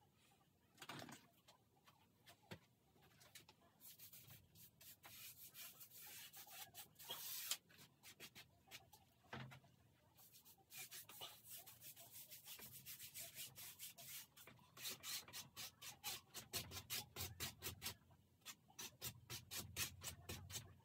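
A hand-held pad rubbed over a stretched canvas, faint scattered rubs at first, then quick back-and-forth strokes, a few a second, through the second half.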